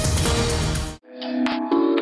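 Electronic background music: a dense track cuts off abruptly about a second in, and a lighter synthesizer piece with sustained tones and a regular ticking beat begins.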